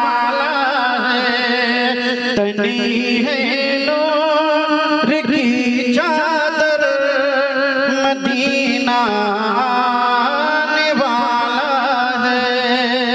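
A man singing a naat, an Urdu devotional poem in praise of the Prophet, drawing out long ornamented melodic lines with a wavering vibrato over a steady low drone.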